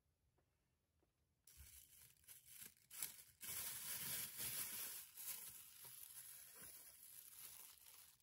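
Thin disposable plastic glove crinkling and rustling as it is handled and pulled onto a hand, starting about a second and a half in and loudest near the middle.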